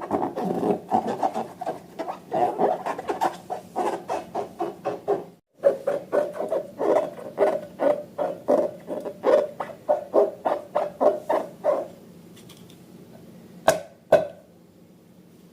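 Slime being stirred and worked in quick, even strokes, about three or four a second, a squishy scraping rub that stops about twelve seconds in. Two sharp clicks come near the end.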